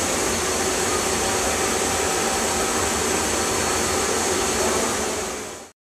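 Steady hiss and hum of running machinery, with a few faint steady tones in it, fading out near the end.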